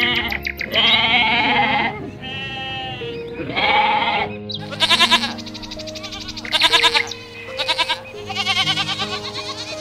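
Sheep bleating: a run of about six quavering bleats, several seconds apart, over soft background music with held notes.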